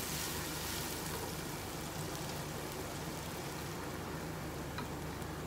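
Chopped onions with ginger-garlic paste frying in oil in a pan, giving a steady sizzle as a wooden spatula stirs them while they soften toward golden. There is one small click about five seconds in.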